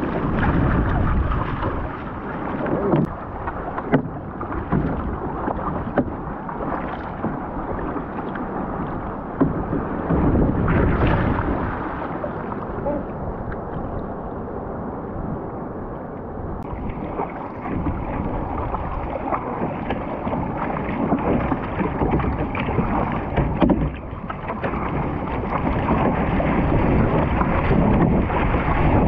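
Sea water rushing and splashing along a surfski's hull as it is paddled through choppy water, with wind buffeting the microphone. A few sharp slaps of water or paddle stand out, about four seconds in, near ten seconds and near twenty-four seconds.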